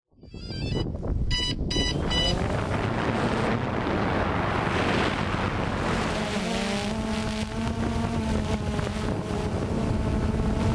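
Multirotor camera drone in flight: a steady hum from its motors and propellers under a loud rush of wind, after a few short electronic beeps about two seconds in.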